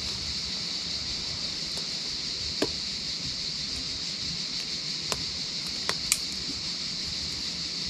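Chorus of cicadas singing in a steady, high, unbroken hiss, with four sharp clicks scattered through it.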